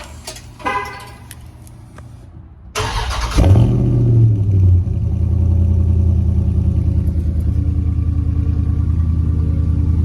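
Two short car-horn chirps, then about three seconds in a Dodge Charger Scat Pack's 392 (6.4-litre) HEMI V8 cranks and fires on a cold start, flaring up in revs for about two seconds before settling into a steady high idle through the stock exhaust tips.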